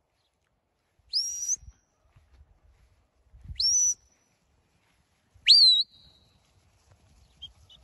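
Sheepdog handler's whistle commands: three short whistles about two seconds apart, each sliding sharply up in pitch and then holding. The last is lower and the loudest.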